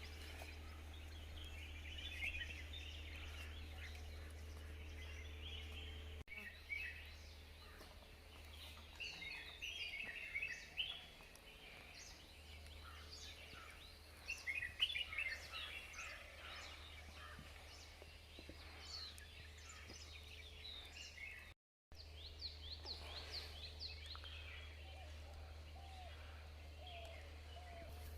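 Wild birds chirping and singing, many short calls and trills from several birds, over a steady low rumble. The sound cuts out briefly about three quarters of the way through.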